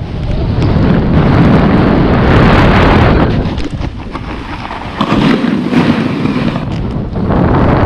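Wind buffeting a GoPro Hero 7 Black's microphone mixed with a snowboard scraping and sliding over packed snow during a descent. The noise eases off about halfway through as the rider slows and sits down, then picks up again.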